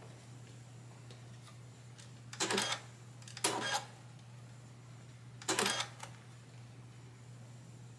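Computerised sewing machine running in three short bursts, each under half a second, over a steady low hum.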